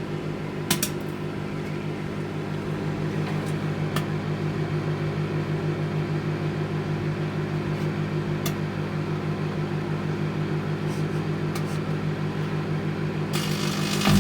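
700-watt Anko microwave oven running, a steady hum with a slight regular pulsing, while heating foil Ferrero Rocher wrappers. A few sharp clicks sound over the hum, and a hiss joins near the end.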